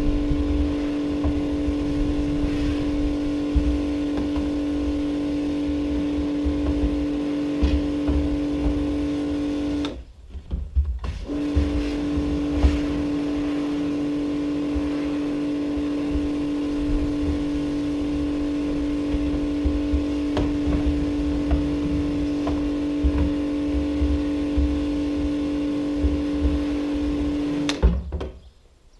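Electric pressure washer running with a steady hum while its jet sprays inside a plastic IBC tank. It cuts out for about a second, about ten seconds in, then starts again, and stops shortly before the end.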